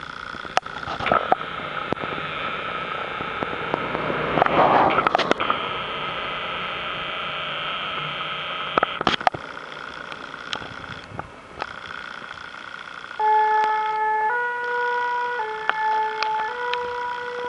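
Citroën Berlingo fire-service medical van driving past close by, loudest about four to five seconds in, then pulling away. About thirteen seconds in its French two-tone siren starts, stepping back and forth between two close notes about once a second as it leaves on a call.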